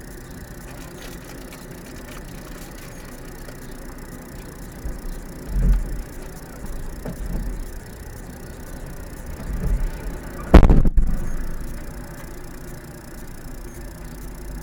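Steady low rumble from a vehicle standing at a roadside, with low swells as other vehicles pass, including a van. About eleven seconds in comes one sharp, loud knock, the loudest sound here.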